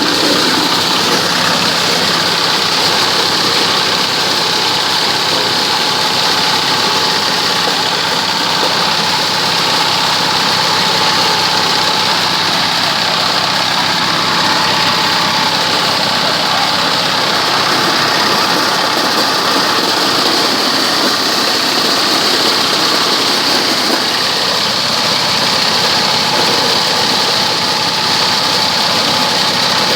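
Engine-driven corn sheller running steadily, a loud, even mechanical drone.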